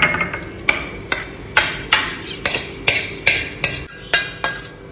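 A spoon scraping chutney out of a pan: quick, repeated scrapes and taps, about two or three a second, that stop shortly before the end.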